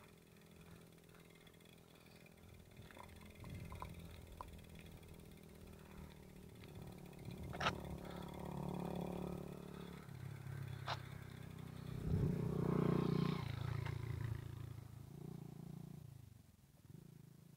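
A motor vehicle's engine passing: a low, steady running sound that builds to its loudest about twelve seconds in, then fades away near the end, with two sharp clicks along the way.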